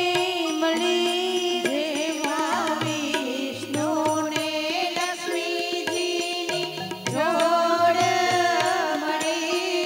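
Women singing a Gujarati wedding song (lagna geet) into microphones, accompanied by tabla strokes and sustained keyboard notes.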